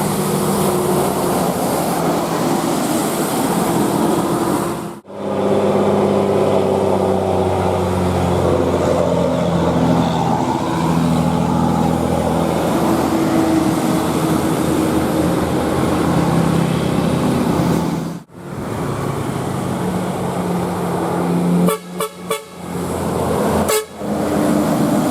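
Bus 'telolet' horns: multi-tone musical air horns sounding a run of held notes that step from pitch to pitch. The sound cuts off abruptly twice, then stutters in several quick breaks near the end.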